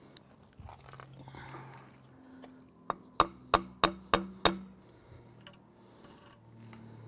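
A mallet tapping on a cast concrete column segment to bring it level: one light knock, then five sharp knocks about three a second, each with a short ring.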